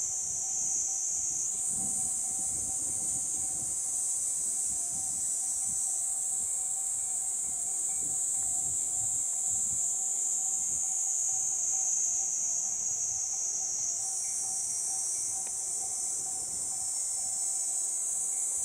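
A steady, shrill chorus of summer cicadas buzzing high in pitch, its sound shifting a little about a second and a half in and again near the fourteen-second mark, with a faint steady tone underneath.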